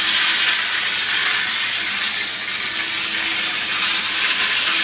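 Hornby Dublo three-rail model locomotive running continuously around its track, a steady hissing whirr of the electric motor and wheels on the rails with a faint hum under it.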